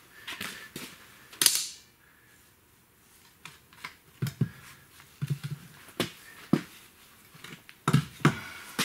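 Scattered metal clanks and knocks from a Geo Metro manual transmission being handled and shifted about on the floor, with one sharp, ringing clank about a second and a half in.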